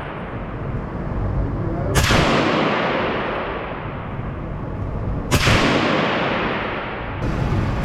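Two gunshots about three and a half seconds apart, each trailing off in a long echo.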